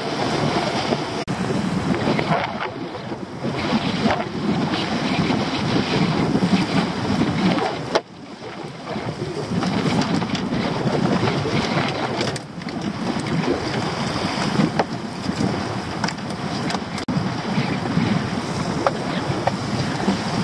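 Wind buffeting the microphone and waves slapping and splashing against the hull of a small open boat on a choppy sea. The noise is steady and drops out sharply about eight seconds in, then comes straight back.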